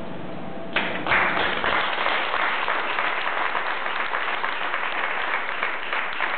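Audience applauding. The clapping breaks out sharply just under a second in and then carries on steadily.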